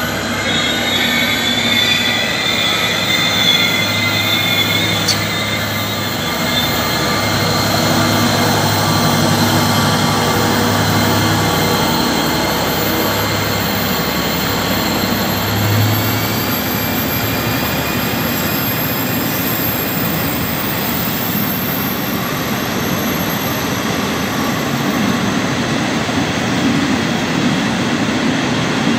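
Diesel locomotive passing slowly with its engine running, followed by a long train of empty car-carrier wagons rolling by. The wheels squeal high-pitched over the first few seconds, and a thin squeal lingers. The engine's low hum fades about halfway through, leaving the steady rumble of the wagons.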